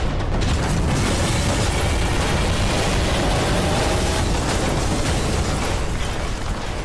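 Battlefield explosions heard as a loud, continuous rumbling roar, with no single separate blast standing out.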